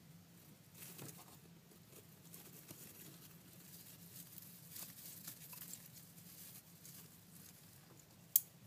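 Faint scratching and rustling of wood-chip bedding with small ticks as a Nile monitor lizard strikes at and pulls food from metal feeding tongs. One sharp click near the end.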